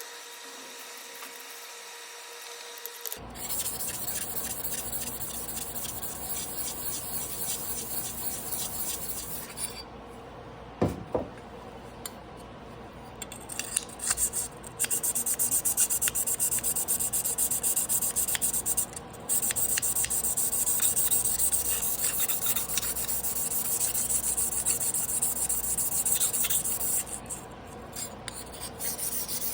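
Carbon-steel knife blade being rubbed back and forth on a whetstone in quick, even strokes, with a pause midway.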